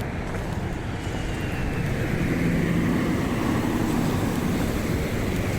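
Road traffic: a motor vehicle driving past with engine hum and tyre noise, swelling a little around the middle and easing off near the end.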